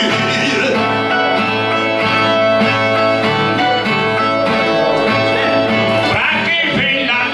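Brazilian viola (ten-string viola) strummed and plucked in a baião de viola interlude between sung verses of a repente. Near the end, a voice begins to come in over it.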